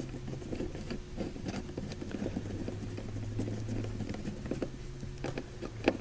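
A hand screwdriver driving a screw into plastic interior trim: a quiet, irregular patter of small clicks and scrapes, with a sharper click near the end, over a steady low hum.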